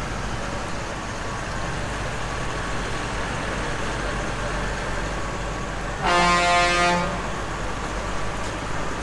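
Tractor diesel engines run steadily as the tractors drive slowly past. About six seconds in, a vehicle horn gives one loud blast lasting about a second.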